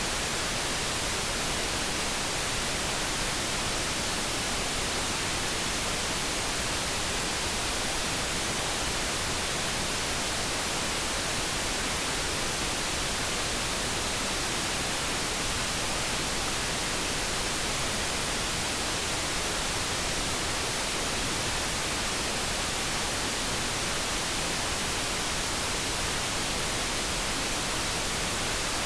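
Steady generated noise, an even hiss with no tones, clicks or changes in level.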